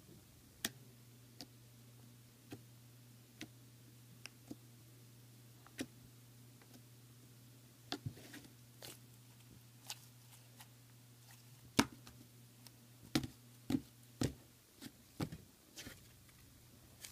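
Fingers poking and pressing a blob of slime, giving short sharp pops and squishy clicks, scattered at first and coming faster in the second half, over a faint low steady hum.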